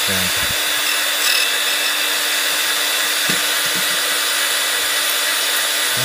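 Silca 007-A portable key duplicator running steadily, the even whir and hiss of its motor and spinning cutter.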